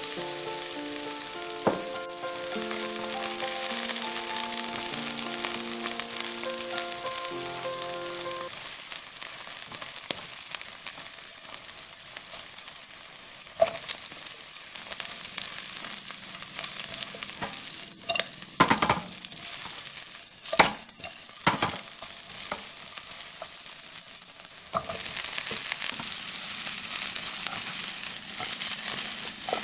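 Garlic, red chilies and scallion whites sizzling steadily in hot oil in a wok, with background music fading out over the first several seconds. Midway, sliced carrots go in and a few sharp knocks and scrapes of stirring break through. The sizzle grows louder again near the end as the vegetables are tossed in the wok.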